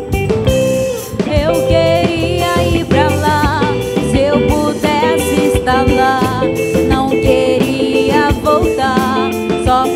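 Christian worship band music: drum kit and guitar under a wavering lead melody with vibrato.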